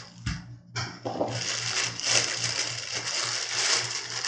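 Clear plastic bag crinkling and rustling as it is pulled off a small electronic unit. The crinkling starts about a second in and continues steadily.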